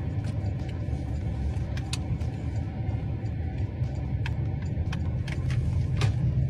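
Steady low rumble of road and engine noise inside a moving car's cabin, with a few light clicks.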